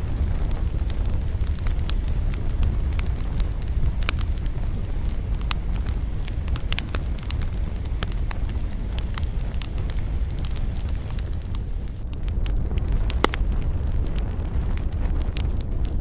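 Wood fire burning in a campfire: a steady low rumble of the flames with scattered sharp crackles and pops from the burning wood.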